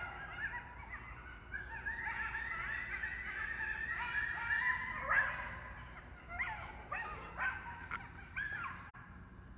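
A group of dog-like animals yelping and yipping together, many high calls overlapping and sliding in pitch. About two-thirds of the way through they thin out into separate yelps, which die away near the end.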